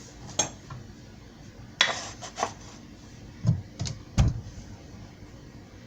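Sharp clicks and knocks of a heavy Zulay garlic press being handled and squeezed shut on a garlic clove: a cluster of taps about two seconds in and three louder knocks a second and a half later.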